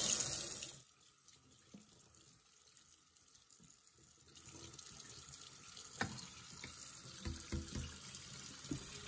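Kitchen sink tap running and then shut off abruptly under a second in. After a quiet stretch, a faint steady hiss returns with a few light clicks.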